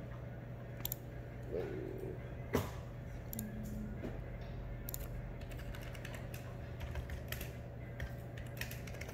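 Computer keyboard typing and mouse clicks: irregular light clicks, with one sharper click about two and a half seconds in, over a steady low hum.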